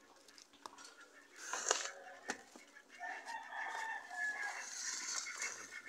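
A rooster crowing in one long call, starting about halfway through. A few sharp knocks come before it, the loudest a little under two seconds in.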